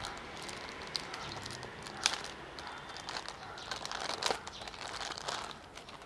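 Thin clear plastic bag crinkling as a small plastic toy buckle is worked out of it by hand. The rustling runs on throughout, with a few sharper crackles.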